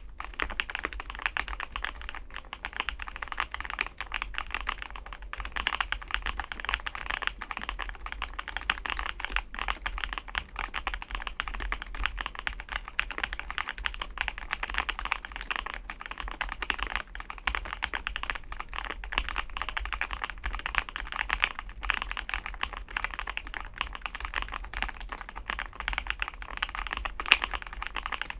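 Fast, continuous typing on a Chosfox x masro Fox65 gasket-mounted mechanical keyboard: a dense, unbroken run of keystroke clacks.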